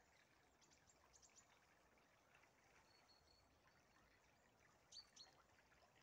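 Near silence with faint high bird chirps: a few quick calls about a second in, a thin whistle near the middle, and two sharper chirps near the end, the loudest of them.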